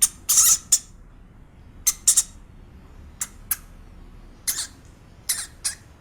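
A farm bird giving short, harsh squawking calls, about a dozen in quick clusters of two or three.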